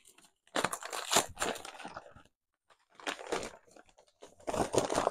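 Brown wrapping paper crinkling and tearing in irregular bursts as a parcel is unwrapped by hand, with a brief pause about two seconds in.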